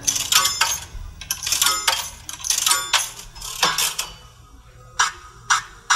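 Coins dropping and clinking, a casino sound effect: a quick run of metallic chinks with short rings for about four seconds, then two single sharp chinks near the end.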